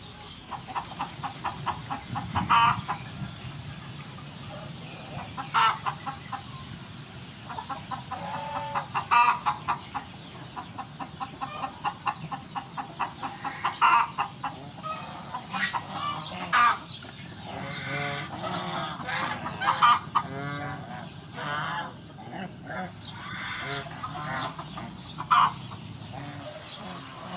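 Flock of domestic geese honking, in repeated runs of quick calls with louder single honks among them.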